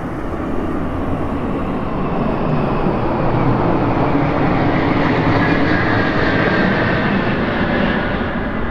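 Engine drone of a formation of military aircraft flying over, swelling through the middle and easing near the end, over steady wind rush on the moving bicycle's camera.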